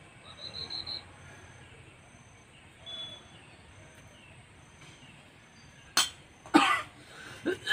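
Quiet outdoor ambience with faint insect chirping in an even pulse, about two a second. About a second in, a bird gives four quick high chirps. Near the end come a sharp click and then a person coughing.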